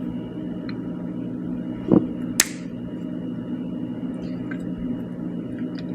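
Side cutters clipping off a protruding hot-staple leg from a plastic repair: one sharp clip about two and a half seconds in, just after a short squeak from the cutters, whose pivot needs oil. A steady low hum underneath, with a few faint ticks.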